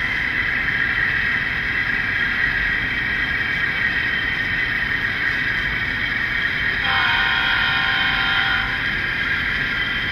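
Sound-equipped model diesel locomotive running with a steady engine sound from its small on-board speaker. About seven seconds in it sounds its chime horn for about two seconds.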